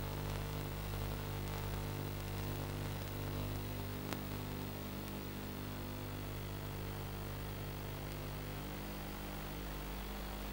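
Steady hum of several low tones under an even hiss, with one sharp click about four seconds in.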